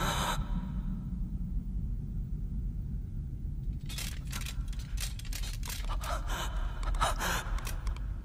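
A sharp gasp right at the start over a steady low rumble. About four seconds in come a run of dry scraping and creaking clicks that last a few seconds.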